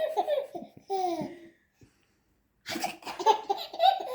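Baby laughing in two bouts of short, falling bursts, with a pause of about a second between them.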